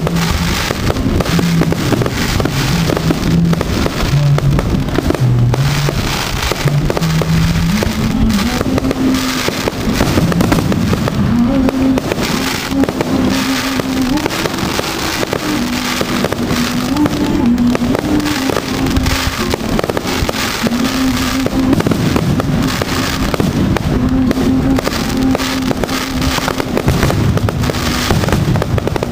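Aerial fireworks shells bursting in a dense, continuous run of bangs. A tune of held notes that step up and down plays along underneath.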